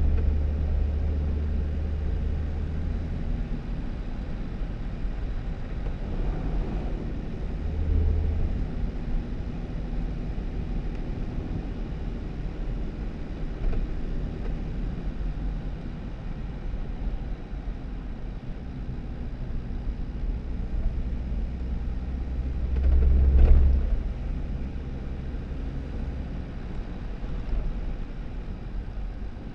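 2018 Jeep Wrangler driving on a snowy dirt road: a steady low rumble of engine and tyres, with a brief swell about 8 seconds in and a louder one about 23 seconds in.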